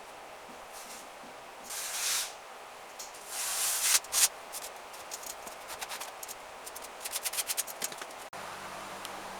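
Strokes of a hand tool rubbing and scraping across a patched plaster wall: a few longer strokes, then a quick run of short back-and-forth strokes. Near the end the sound changes abruptly to a steady low hum.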